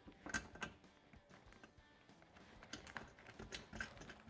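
Protective film being peeled off a polycarbonate windshield, giving faint, irregular crackles and ticks.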